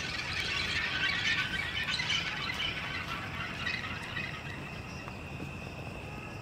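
A dense flurry of high-pitched squeals and chirps for about three and a half seconds, thinning into a steady high trill of night insects.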